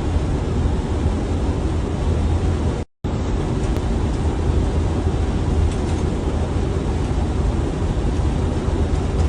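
Steady rush of airflow and engine rumble on an Airbus airliner's flight deck during final approach, with a heavy low drone. The sound cuts out completely for a moment about three seconds in.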